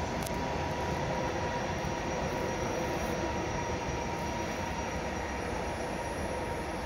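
Regional train hauled by an E464 electric locomotive passing at moderate distance: a steady rolling rumble of wheels on rail with a faint steady whine over it.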